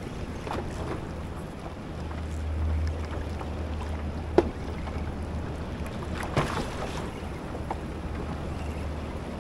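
Wind buffeting the microphone in a steady low rumble, over choppy sea water lapping around a fishing kayak. A single sharp knock comes about four seconds in, and a short burst of splashing noise a couple of seconds later.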